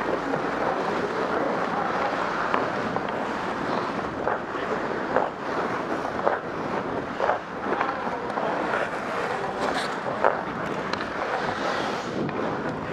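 Ice hockey practice on an indoor rink: a steady rushing noise of skating and rink air, broken by a dozen or so sharp clacks of sticks and pucks on the ice and boards.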